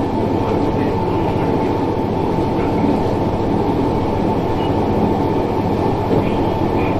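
KTR800 diesel railcar running along the line, heard from inside the cab: steady engine and running noise with a constant high hum.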